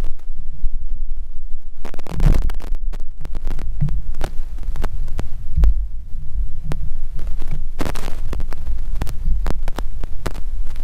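A steady low rumble with heavy thumping, scattered with sharp clicks and knocks from fishing rods and tackle being handled on a bass boat's deck. The knocks come thickest about two seconds in and again about eight seconds in.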